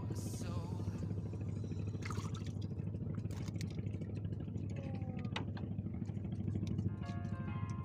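A steady low drone, like a small engine running, with a few faint clicks.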